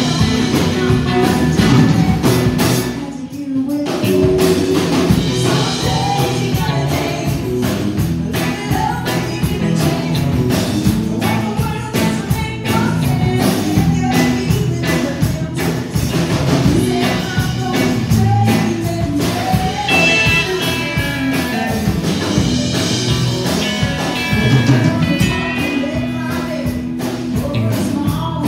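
Live country band playing: a woman sings lead over acoustic guitar, electric bass and drums, with a short break in the music about three seconds in.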